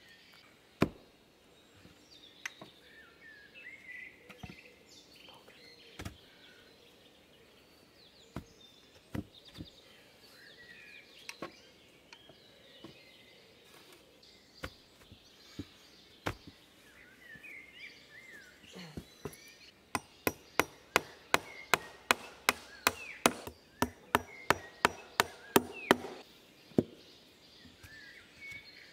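Hammer striking wooden boards, likely driving nails into a raised-bed wall: scattered single knocks, then a quick steady run of about three blows a second for some six seconds near the end.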